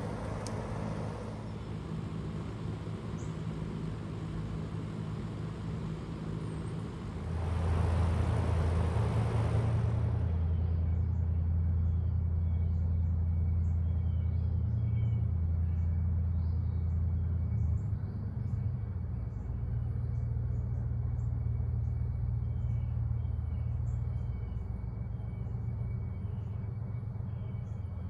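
A 2022 Fujitsu Halcyon DC inverter mini-split heat pump outdoor unit running in heat mode: a steady low hum of compressor and fan. The hum swells louder about seven seconds in and eases a little in the second half.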